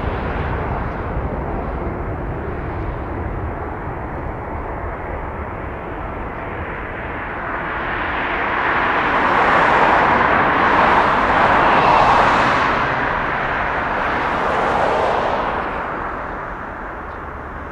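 Jet noise from a Boeing 747-400's four turbofan engines at takeoff thrust. It is steady through the takeoff roll, grows louder as the airliner lifts off and climbs out, is loudest about ten to twelve seconds in, swells once more, then fades near the end.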